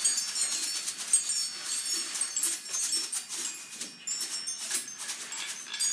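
Many small percussion instruments shaken and jingled together by children as a sound effect for rolling waves: a continuous tinkling, rattling clatter of bell-like rings and clicks.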